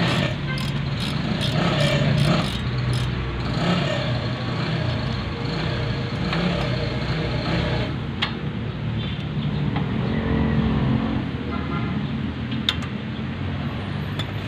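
A motor vehicle engine running with a steady low rumble, with two short sharp clicks partway through.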